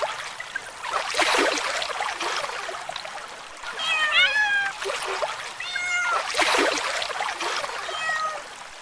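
A cat meowing several times, with splashing and trickling water between the meows.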